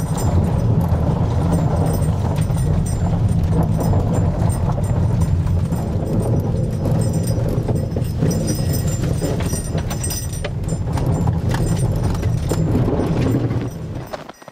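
A car driving over rutted, packed snow, heard inside the cabin: a steady low rumble with constant crunching and knocking of snow under the tyres and body. It cuts off near the end.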